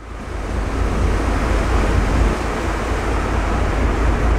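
A ship underway through broken sea ice: a steady deep rumble with a rushing noise over it, fading in at the start.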